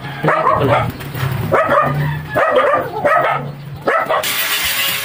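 A dog barking repeatedly, a string of short sharp barks over about four seconds.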